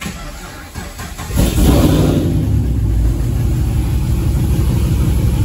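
2015 Camaro SS V8 cranking for about a second, then catching and running steadily. It runs with one cylinder's fuel injector unplugged and a pressure transducer in that spark plug hole for an in-cylinder compression test.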